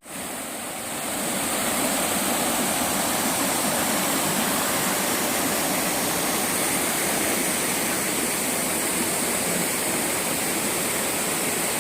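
Mountain stream rushing steadily, fading in over the first second.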